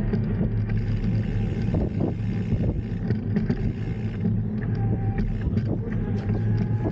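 Steady low rumble with a droning hum of riding a bike along a street, road and wind noise on the microphone, with a few faint clicks and knocks scattered through.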